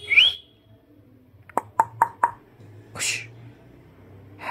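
Four quick, sharp knocks with a brief ring, like knuckles rapping on a door or wooden surface, about one and a half to two seconds in. They are preceded by a short rising whistle and followed by a breathy hiss.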